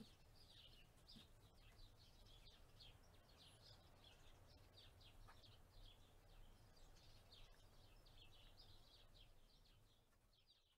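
Faint outdoor birdsong: a rapid, continuous run of short high chirps from small birds, over a low wind rumble on the microphone. It fades out near the end.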